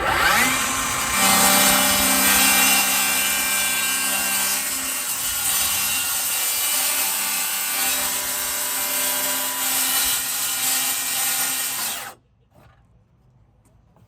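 Circular saw cutting into a boat's rotted, wood-cored fiberglass deck, running steadily with a motor whine over the cutting noise, then cutting off suddenly about twelve seconds in.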